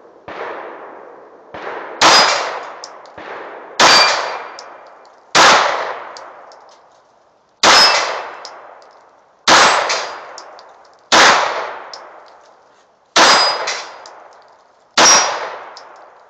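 Glock 17 9mm pistol fired in deliberate single shots, about eight loud reports spaced a second and a half to two seconds apart, each trailing off in echo. A few quieter reports come in the first few seconds, and short faint clinks follow some of the shots.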